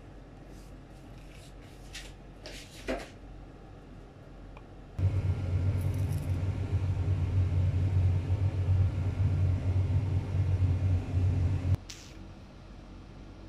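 Quiet room tone with a few light handling clicks, then a loud, steady low rumble that starts suddenly about five seconds in and cuts off sharply with a click near the end.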